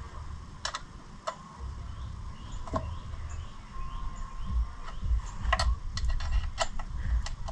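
Scattered sharp metallic clicks and taps from tools and hardware being handled while a case saver is fitted to the ATV's engine case. There are about seven separate clicks, several close together in the second half, over a low, uneven rumble.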